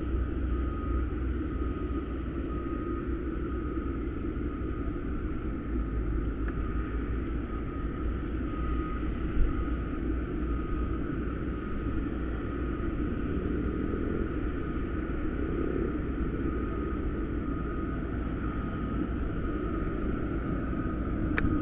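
Steady, muffled rumble of road traffic from the street below, with one short sharp knock about nine seconds in.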